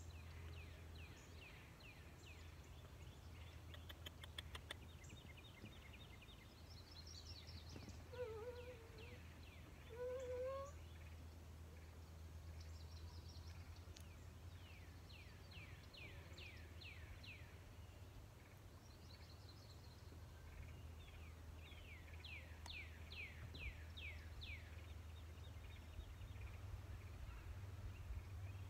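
Songbirds singing in the background: runs of quick, repeated downward-slurred whistled notes, the runs coming again and again. Two short lower calls stand out about 8 and 10 seconds in, over a faint steady low hum.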